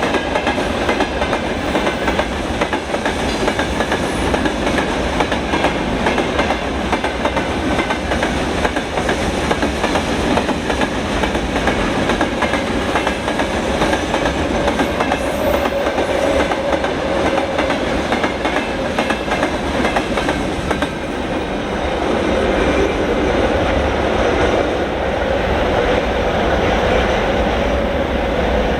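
Freight train wagons rolling by at speed: a steady rumble with a clickety-clack of wheels over the rails. A ringing tone comes in around the middle and grows louder near the end.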